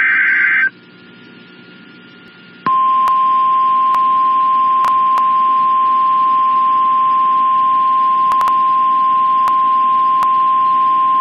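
Weather radio emergency alert: the end of a screeching digital header burst, a short pause, then the long steady warning alarm tone held for about nine seconds, announcing a flash flood warning.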